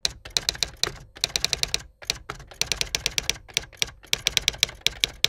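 Typing sound effect: rapid key clicks, several a second, in quick runs with short pauses between them.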